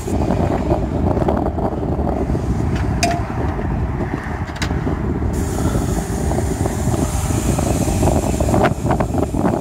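Wind buffeting the microphone: a continuous, irregular low rumble with a couple of faint ticks.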